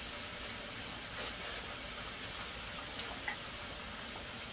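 Seasoned ground beef sizzling steadily in a skillet, with a couple of light clicks of a spatula against the pan about three seconds in.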